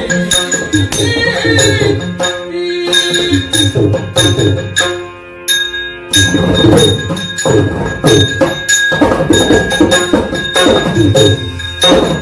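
Yakshagana ensemble music: maddale and chende drum strokes with small hand cymbals (tala) ringing over a steady drone, with a brief lull about five seconds in.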